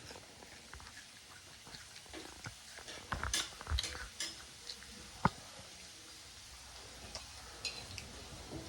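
Quiet kitchen sounds of battered potato slices frying in oil: a faint sizzling hiss with scattered clicks and knocks of utensils. There is a small cluster of knocks a few seconds in and one sharper click about halfway through.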